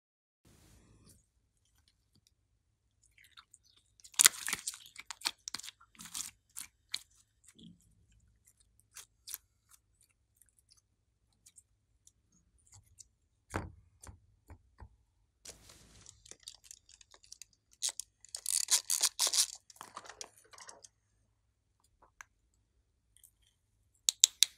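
Clear pink slime being pressed and stretched by hand, with sticky crackling and popping in two bursts, one about four seconds in and one near eighteen seconds in. A single dull knock comes between them, and a few sharp clicks just before the end.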